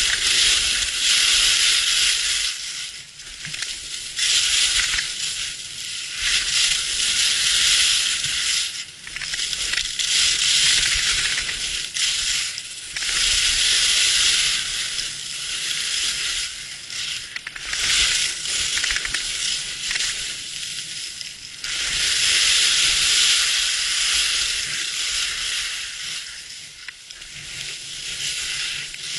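Skis carving down a hard-packed, scraped piste, the edges scraping and hissing on the snow in a long swell with each turn and dropping away between turns every few seconds.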